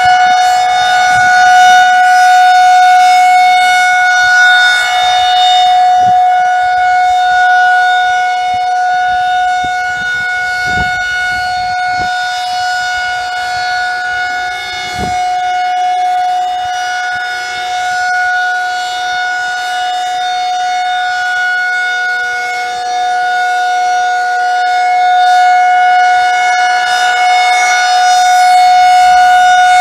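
Outdoor tornado warning siren sounding a steady, unwavering tone during its monthly test. The loudness slowly swells and fades, dipping in the middle and building again near the end.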